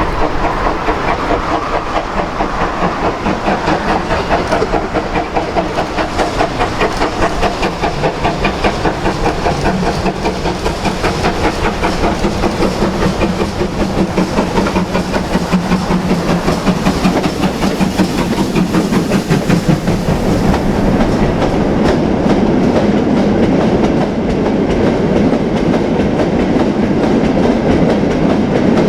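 Steam-hauled train running past with a fast, even rhythmic beat over heavy rail noise; about twenty seconds in the beat gives way to a smoother, steadier rumble.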